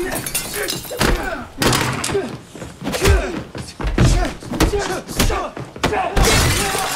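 Film fight sound effects: a quick string of heavy thuds from blows and bodies hitting, with the fighters' grunts between the impacts.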